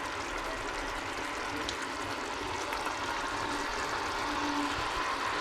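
Pot of potato and sausage curry simmering: a steady hiss with a few faint ticks and pops, growing slightly louder.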